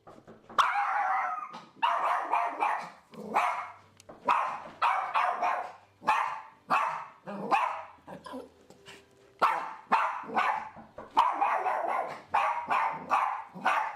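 Small Coton de Tulear dog barking in rapid, repeated runs of high, sharp barks, about two a second, without letup: the persistent reactive barking that is the problem behavior being trained out.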